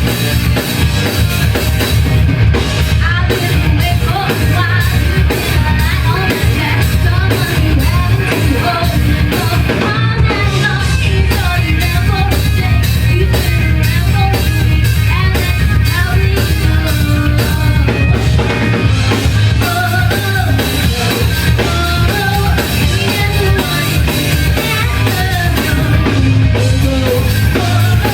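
Rock band playing live: a drum kit keeps a steady driving beat under loud amplified bass and guitar, with singing over the top.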